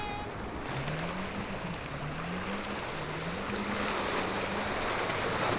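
Speedboat engine running hard out on the water, its pitch climbing, dropping back and climbing again several times, over the wash of surf and wind.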